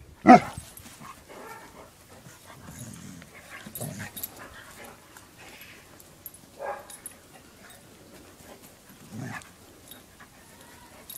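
A Rottweiler and a husky-type dog play-fighting. There is one loud bark just after the start, then quieter, low-pitched dog vocalisations every few seconds.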